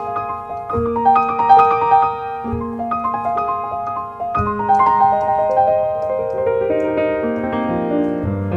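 Solo grand piano playing a repeating melodic riff over held bass notes, which change every couple of seconds. About halfway through it moves into a rolling run of arpeggiated notes.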